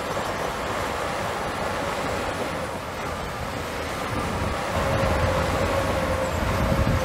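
Heavy diesel earthmoving machinery running, a steady rumble with a faint held whine, growing louder and deeper about four seconds in.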